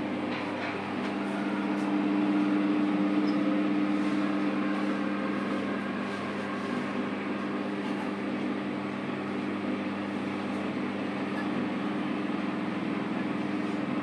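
Convection microwave oven's cooling fan running with a steady hum and a low drone, slightly louder a couple of seconds in.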